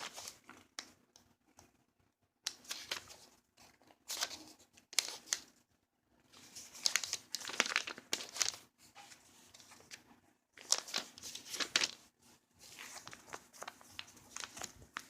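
Packaging crinkling and rustling in several irregular bursts as it is handled, with short quiet gaps between.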